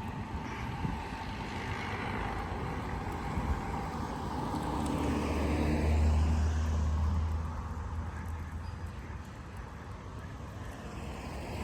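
A car driving past, its low engine hum and tyre noise swelling to loudest about six seconds in, then fading away.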